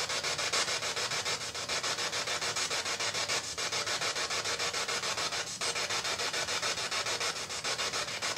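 Spirit box sweeping through radio stations: a steady hiss of static chopped into rapid even pulses, several a second.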